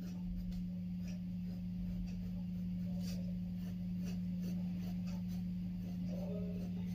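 Pencil scratching on paper in short, light strokes as hair is sketched, over a steady low hum.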